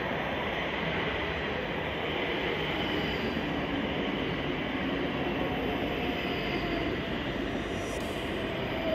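Class 334 Juniper electric multiple unit running past along the platform: a steady rumble of wheels on rail with a faint whine over it.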